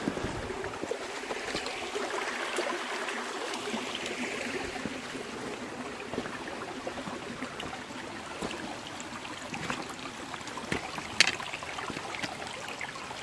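A small Highland river running over rocks: a steady rush of water, with scattered light clicks and knocks, one sharper click about eleven seconds in.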